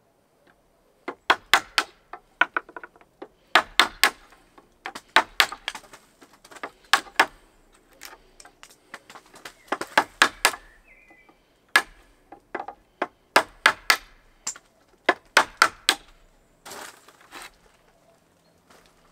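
Hammer blows, in quick bursts of two to five sharp strikes with short pauses between.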